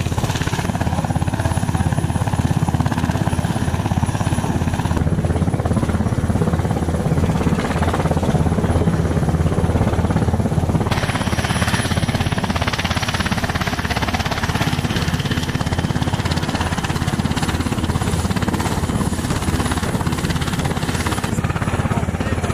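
Helicopter running on the ground, its rotor beating in a fast, steady rhythm.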